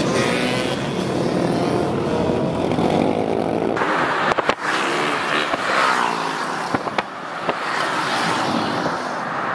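Dirt bikes and ATVs riding past in a group, their small engines revving up and down. The sound changes abruptly about four seconds in, and a few short clicks follow.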